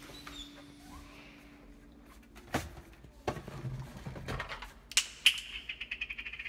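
Clicks and knocks of household items being handled on pantry shelves, then a fast run of light ticking for about a second near the end.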